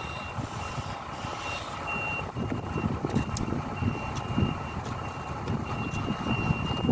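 A heavy-machine warning beeper sounds a single high tone, beeping on and off over and over, over the low rumble of a running diesel engine.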